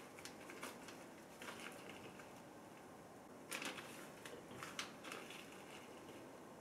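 Plastic freezer bag crinkling as it is lowered into a pot of hot water and pressed down with wooden chopsticks: scattered faint crackles and light clicks, busiest about three and a half seconds in.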